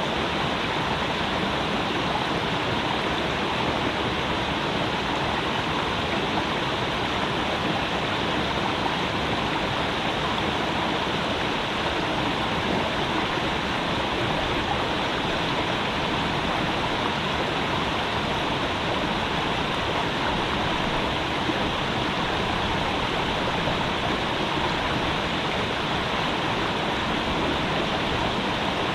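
Creek water rushing and burbling in a steady, even flow.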